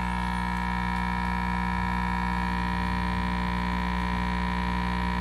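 Steady electrical mains hum, an unbroken buzz made of many evenly spaced pitches stacked together.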